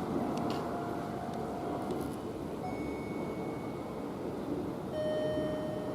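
Level-crossing electronic alarm giving long, separate 'pe-pe' beeps over the steady running noise of a Kintetsu local train.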